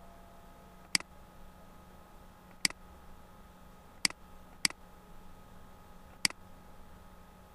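Computer mouse button clicking five times at uneven intervals, two of them in quick succession a little past the middle, over a faint steady hum.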